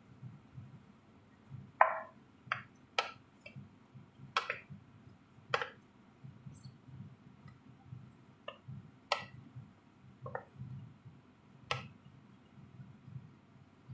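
Wooden spoon stirring a creamy chicken curry in a frying pan, with about ten sharp, irregular clicks and knocks as the spoon strikes the pan.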